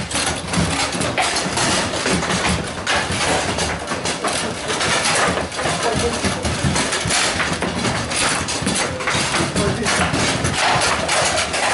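Continuous clatter of table-football play from many tables at once: balls knocking against the figures and table walls and rods clacking, with a background hubbub of voices.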